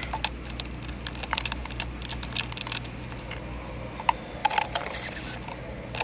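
Scattered light plastic clicks and taps as a refrigerator's inner fan cover and panel are fitted back in place and screws are set, over a steady low hum.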